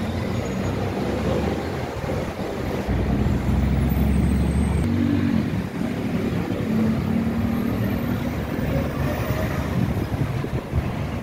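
Busy road traffic passing below: a steady wash of cars, buses and motorbikes, with a deeper low rumble from about three to five seconds in and a few passing engine notes after it.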